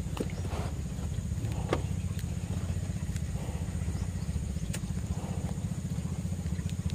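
A small engine idling steadily, a low, fast, even putter, with a few light clicks from hands working banana bait onto a hook.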